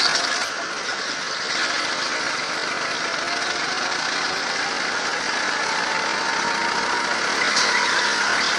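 Go-kart engine running at speed, heard onboard from the driver's seat, with a faint engine whine that rises slowly in the middle.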